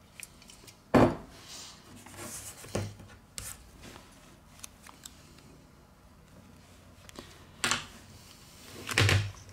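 Handling noise of phone-repair tools: scattered sharp knocks and clicks with some scraping between, as a metal opening tool and a plastic pick are worked into the seam of a smartphone's screen. The loudest knocks come about a second in and near the end.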